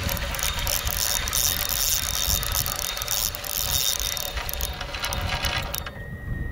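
Spinning reel being cranked, a rapid run of gear clicks that stops a little before the end, over a low wind rumble on the microphone.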